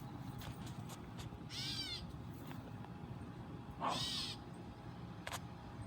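A baby bird calling twice, about two seconds apart, in short calls of about half a second each, the second louder; a short click follows near the end.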